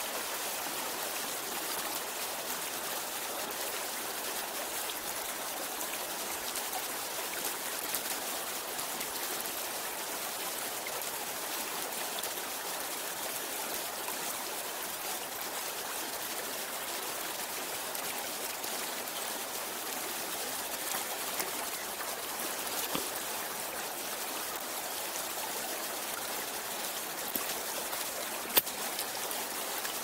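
Shallow mountain stream flowing over stones: a steady rushing of water, with a few small clicks, the sharpest near the end.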